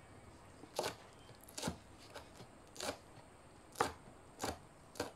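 Kitchen knife chopping green chillies on a plastic cutting board: six sharp knocks of the blade on the board, starting about a second in and coming roughly once a second at uneven spacing.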